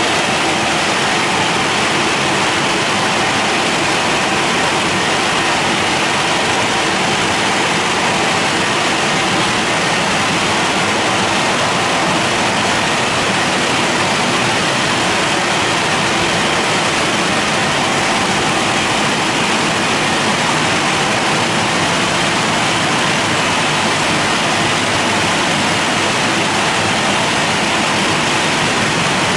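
Drying blowers of a WashTec SoftWash gantry car wash running, a loud steady rush of air with a faint fan hum in it, during the final drying stage of the wash.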